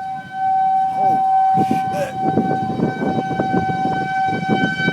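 Outdoor tornado warning siren sounding one steady tone, with gusty wind rumbling on the microphone from about a second and a half in.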